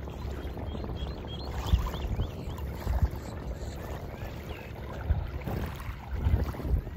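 Wind buffeting the microphone in uneven gusts over small waves lapping at the water's edge, with a brief run of faint high chirps about a second and a half in.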